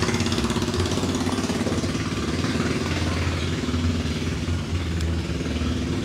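Boat engine idling steadily, a low even drone with no change in speed.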